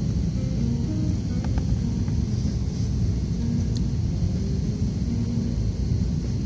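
Jet airliner cabin noise on final approach, flaps extended: a steady low rumble of engines and rushing air.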